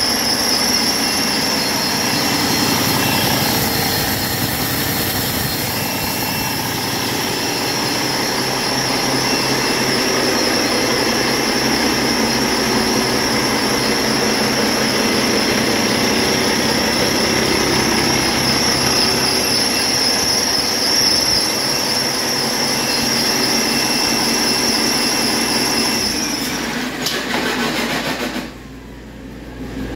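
Cummins ISX15 inline-six heavy-truck diesel engine running steadily on a test stand, with a steady high whine over the engine note; the seller says this used engine runs excellently. The sound stops shortly before the end.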